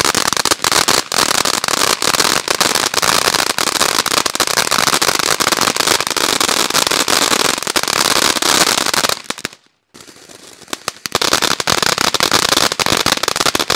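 Ghost Fountain firework fountain spraying sparks, with dense, rapid crackling over a steady hiss. It drops out briefly about two-thirds of the way through, then picks up again.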